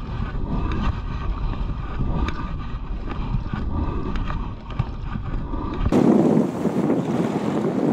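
Small outboard motor running steadily as it pushes an inflatable boat across open water. About six seconds in, the sound cuts suddenly to wind buffeting the microphone over the sea.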